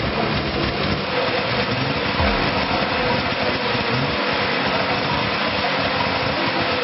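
Old truck engine idling steadily.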